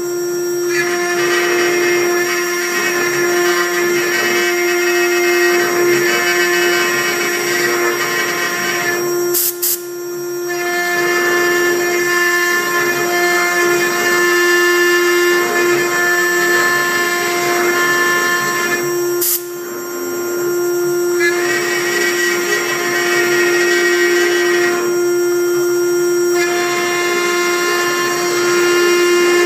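CNC router spindle running at a steady high whine while its engraving bit cuts letters into MDF, with a layer of cutting noise over the whine. The cutting noise thins for a moment when the bit leaves the board, and the sound drops out briefly twice.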